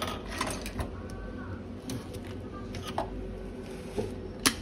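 Small scattered clicks and taps of hands sticking adhesive tape across a cracked iPhone 12 front glass, over a steady low hum, with one sharp click near the end.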